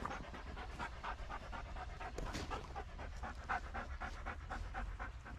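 A dog panting hard in a quick, steady rhythm of short breaths.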